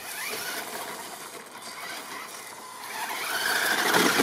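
WLtoys 104311 1/10-scale RC crawler driving, its electric motor and gearbox whining with its tyres on gravel. The sound grows louder in the last second or so as the truck comes close and climbs over a timber edge.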